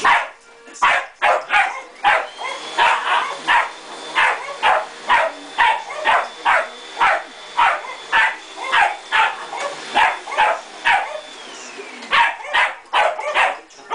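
Small terrier barking over and over at an upright vacuum cleaner, about two barks a second with a short pause about three-quarters of the way through. The vacuum's motor runs steadily beneath the barking.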